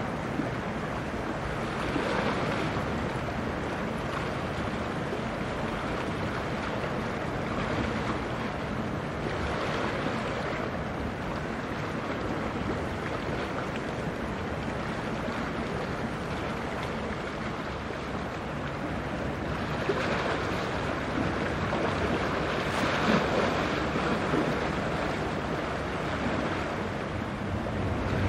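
Steady rush of wind on the microphone mixed with waves washing, swelling gently a few times.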